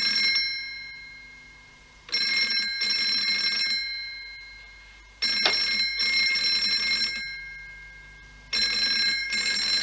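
Telephone bell ringing in repeated bursts, one starting about every three seconds, each dying away before the next. The ringing comes from a cream dial telephone.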